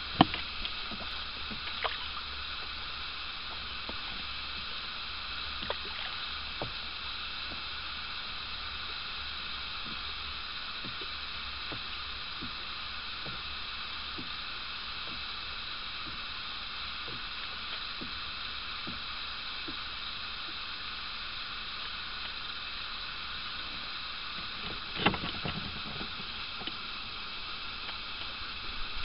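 Steady hum and hiss aboard a bass boat on calm water, with a few faint clicks and one short, louder noise near the end.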